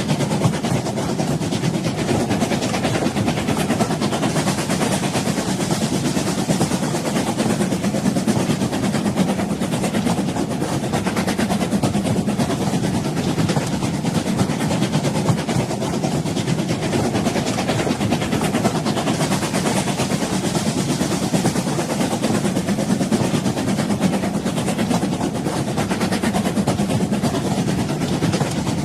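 Train running along the track: a steady, unbroken rumble with a dense, fine rattle over it.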